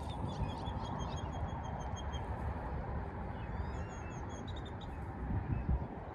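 Wind buffeting the microphone with a low, gusty rumble that swells near the end. A bird calls over it in a rapid series of short high chirps during the first two seconds, and again briefly about four seconds in.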